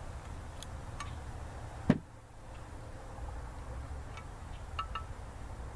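Scattered light metallic clicks and ticks as small VTEC parts are taken out of a Honda F22B1 cylinder head, with a sharper knock about two seconds in and another at the very end.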